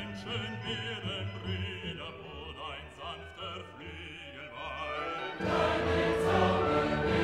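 Background music: classical vocal music with wavering, vibrato-like singing, which swells into a louder, fuller choral passage about five seconds in.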